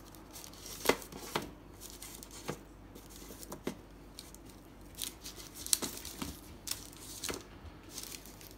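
Half-baked dog biscuits being flipped over by hand on a baking-paper-lined tray: the baking paper rustles and crinkles, with scattered light clicks and taps as the biscuits are picked up and set back down.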